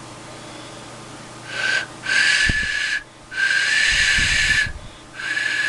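Hand-sculpted, still-wet clay duck whistle blown in four breaths, one short and then three longer, each a single steady breathy note. Its voice has been spoiled by the extra side holes, in the maker's words.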